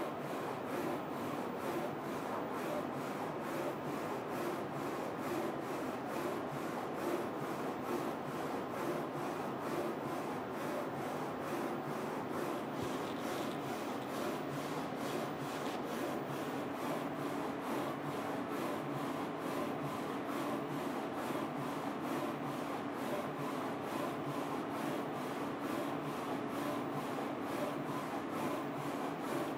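Focus Alpha-Jet A2 UV flatbed printer printing a mug on its rotary jig: the print carriage shuttling and the motors running with a steady rubbing whir, faint regular ticks about twice a second. A low steady hum joins about halfway through.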